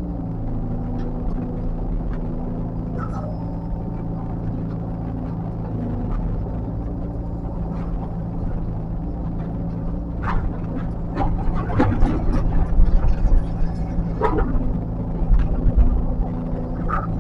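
A heavy earthmoving machine's diesel engine running steadily; its pitch drops slightly right at the start. From about ten seconds in, a run of louder sharp knocks and clanks comes over it for several seconds.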